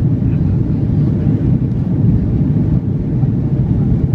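Steady cabin noise of an Airbus A330-300 climbing after takeoff: its Rolls-Royce Trent 700 engines running at climb power and air rushing past the fuselage, heard from inside the passenger cabin as a deep, even rumble.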